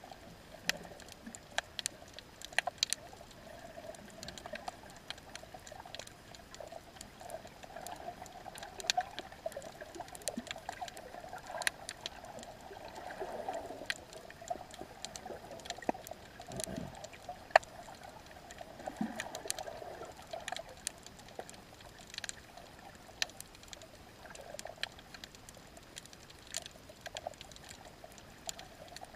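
Underwater reef ambience: scattered, irregular sharp clicks and crackles, typical of snapping shrimp, over a faint steady wash of water.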